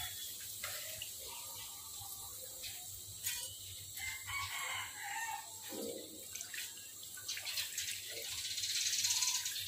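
Taro strips deep-frying in a wok of hot oil: a steady sizzle, with scattered taps and scrapes of a metal spatula against the wok. A chicken calls once around the middle.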